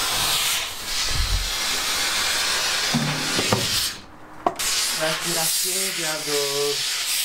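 Steam hissing from a hat-making steamer as felt is held in the jet to soften it for shaping. It cuts out briefly about four seconds in, then resumes.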